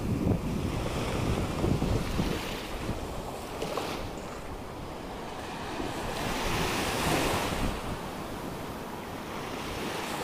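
Ocean surf breaking and washing on a sandy beach, with wind buffeting the microphone. A wave's wash swells and fades about two-thirds of the way through.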